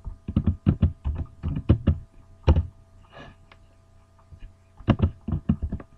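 Keys clicking on a computer keyboard in two quick runs of typing as a command is typed and entered, over a steady electrical hum.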